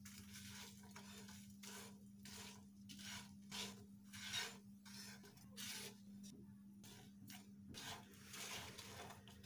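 Faint, repeated scraping of a silicone spatula over a non-stick frying pan as whole dried red chillies, cumin seeds and salt are stirred while they roast, in short irregular strokes.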